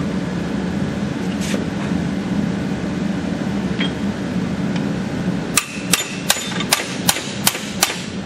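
Hammer blows on a steel punch, driving the old bearing race out of a tractor's steering tube: one light knock, then a run of about seven sharp, ringing metal-on-metal strikes, roughly three a second, in the second half.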